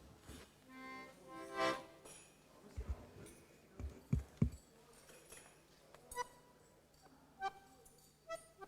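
A musical instrument sounding quietly: held notes in the first two seconds, then a few separate short notes near the end, with a few low thuds in between.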